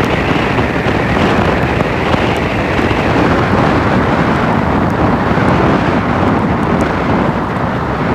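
Steady wind rushing over the microphone of a moving vehicle, mixed with road noise as it drives along a wet road.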